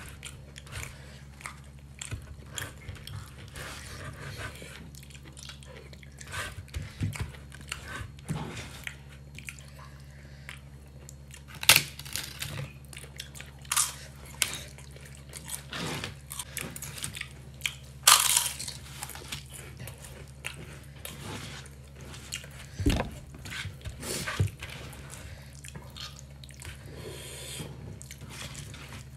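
Close-up eating sounds of a person eating vegetable khichri by hand: chewing and biting with frequent small mouth clicks, and a few louder, sharper bites around twelve and eighteen seconds in. A steady low hum runs underneath.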